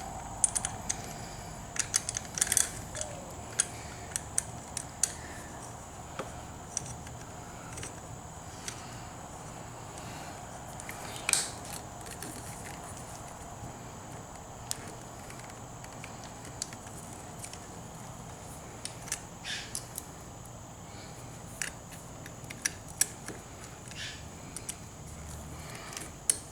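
Scattered small clicks, taps and light metallic rattles of hand work on a motorcycle handlebar grip and its parts and tools, busiest in the first few seconds and again near the middle and toward the end. A faint steady high-pitched whine sits underneath.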